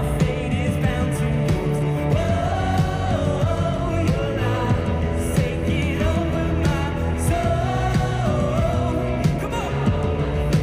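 Contemporary worship pop-rock song: a woman's lead vocal over electric guitar, keyboards, bass and drums, playing steadily.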